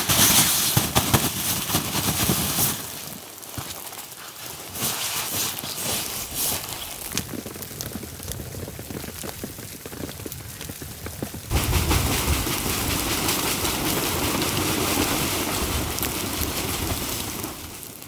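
Small battery-powered Flextail air pump blowing onto a smouldering campfire to bring it to flame, a rushing whoosh of air. It comes on suddenly at the start for a couple of seconds, then in weaker spurts, and from about two-thirds of the way through it runs steadily until near the end.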